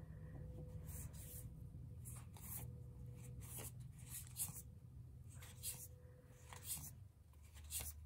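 Faint rustling and light taps of tarot cards being handled, several small strokes a second, over a low steady hum.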